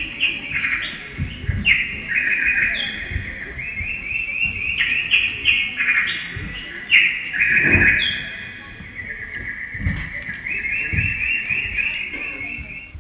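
Bird-like whistling, several overlapping warbling trills and short gliding whistles, as a birdsong effect for a garden scene. A few low thumps sound beneath it, the loudest about eight seconds in.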